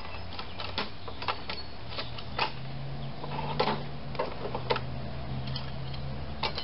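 Metal hand tools clinking and clattering as someone rummages through a toolbox for wrenches: a string of irregular sharp clanks.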